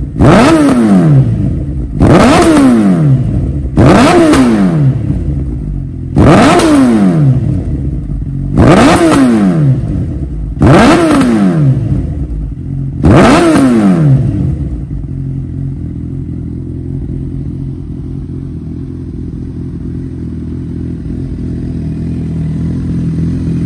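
Honda CB1000R inline-four engine through an SC-Project carbon silencer, blipped seven times about two seconds apart, each rev rising sharply and falling straight back. About halfway through it settles into a steady idle.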